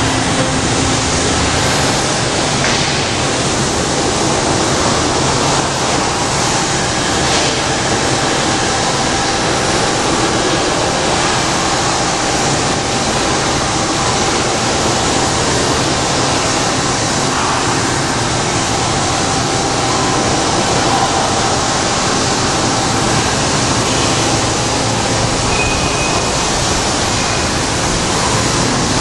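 Steady, loud machinery noise in a metal shop: an even hiss with a faint steady tone beneath, unchanging throughout.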